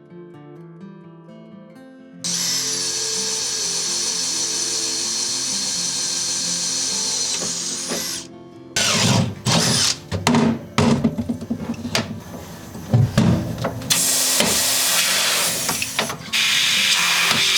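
Power drill running steadily with a high whine for about six seconds, then a series of short stop-start bursts, then running steadily again near the end. Soft acoustic guitar music plays at the start.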